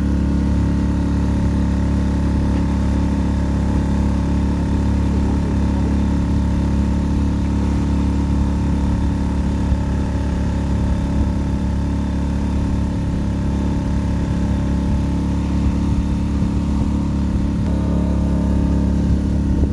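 Outboard motor on an inflatable boat running steadily under way, a constant engine hum.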